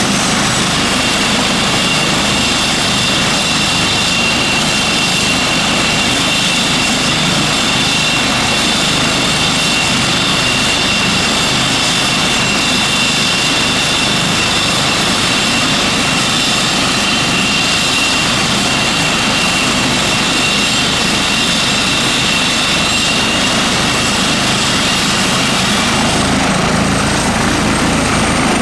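Airbus EC135 T2+ helicopter running on the ground, its twin Turboméca Arrius 2B2 turboshafts giving a steady high whine over the rotor noise. About two seconds before the end the whine climbs slightly and the rotor noise swells as power comes up for take-off.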